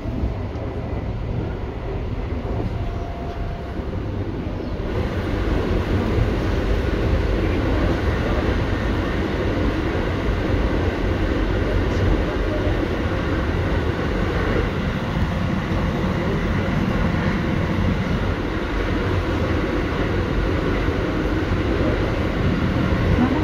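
Running sound of a Keio 8000 series electric train with Hitachi GTO-VVVF traction, heard from inside the car: steady wheel-on-rail and motor noise. It grows louder and brighter about five seconds in.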